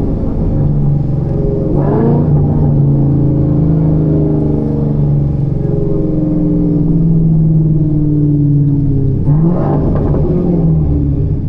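Chevrolet Camaro ZL1's supercharged V8 running under way, its pitch slowly falling, with two quick changes in engine speed, about two seconds in and again near the end.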